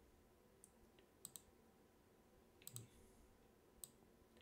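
Faint computer mouse button clicks, about six of them, some in quick pairs like double-clicks, over near-silent room tone.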